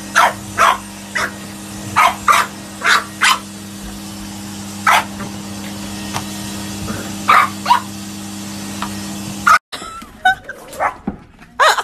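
French bulldog puppy barking sharply at a running vacuum cleaner, about a dozen short barks at irregular intervals over the vacuum motor's steady hum. Both stop abruptly near the end.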